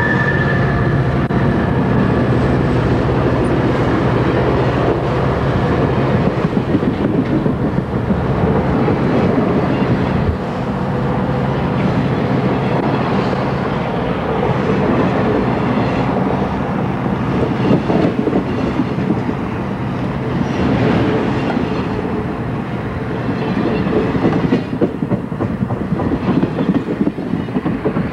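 Amtrak passenger train passing close by. For the first ten seconds or so the two EMD F40PH diesel locomotives' engines drone as they go past, then the bilevel passenger cars roll by with a steady wheel rumble and clickety-clack over the rail joints.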